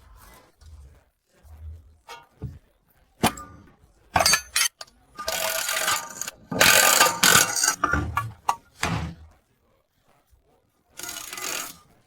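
Mechanical clicking, knocking and scraping, like metal tools and parts being handled during repair work. Sharp clicks come first, then longer stretches of scraping and rattling, with a quiet pause before a last burst near the end.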